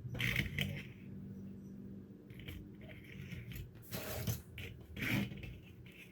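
Handling noises: a few short scrapes and rustles, the loudest about four and five seconds in, over a faint steady low hum.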